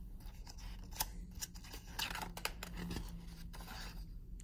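Pages of a picture book being turned by hand: a few crisp paper rustles and light flicks over a couple of seconds.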